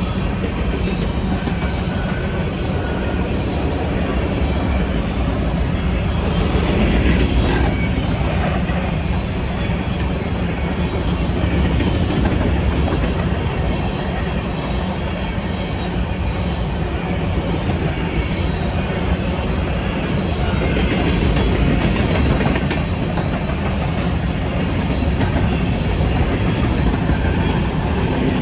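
Freight train cars rolling past, with a continuous heavy rumble and the steel wheels clicking over the rail joints.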